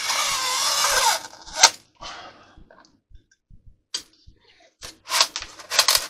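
Solartex iron-on covering rustling and crinkling as it is handled and pulled off the roll, loudest in the first second, then a sharp click followed by scattered light clicks and two short rustles near the end.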